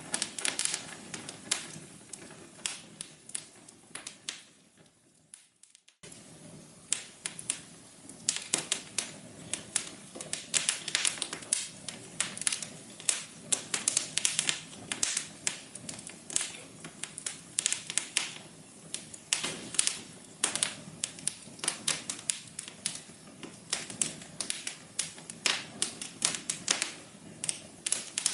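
Wood fire crackling, with irregular sharp pops and snaps over a soft steady hiss. About four seconds in it fades almost away, then cuts back in abruptly about two seconds later.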